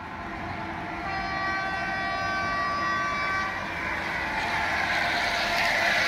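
H0-scale model of a RENFE 443 electric unit running along the layout track. A steady horn tone sounds from about a second in for roughly two and a half seconds, and the model's running noise grows louder near the end as it passes close by.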